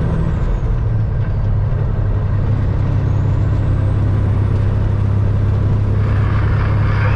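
In-cab drone of a Peterbilt 379's CAT C15 inline-six diesel running steadily at road speed, with tyre and road noise. Near the end a rushing hiss swells as an oncoming truck passes close by.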